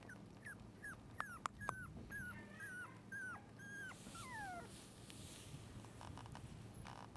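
Shiba Inu puppy whimpering: a quick run of short, high whines that each slide down in pitch, ending with one longer whine that falls further, a little over four seconds in.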